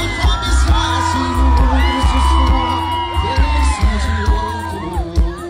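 Live arrocha band music with a thumping bass beat, with crowd whoops and screams over it; long high-pitched voices ring out from about two seconds in.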